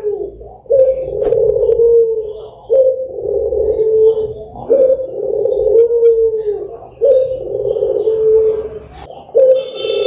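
Barbary (ringneck) dove cooing: a low, drawn-out coo repeated five times, each starting with a sharp note and running on for about a second and a half, one after another about every two seconds.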